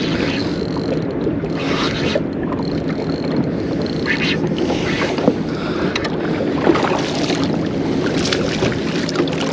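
Wind buffeting the microphone over water moving against a small boat, with a faint steady low hum and scattered short splashy rushes.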